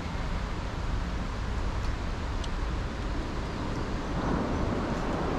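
Steady low outdoor background rumble, with a few faint ticks and a slight swell about four seconds in.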